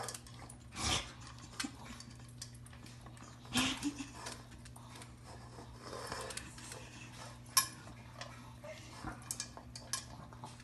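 A Pomeranian and a cat eating dog food from a shared bowl: the food and bowl click and clink irregularly, with a few louder knocks about a second in, halfway through and again a few seconds later.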